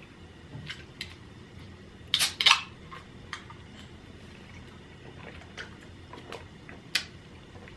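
Handling of a Calpico drink bottle and tableware on a table: scattered light clicks and taps. A louder pair of noises comes a little over two seconds in, and a sharp click near the end.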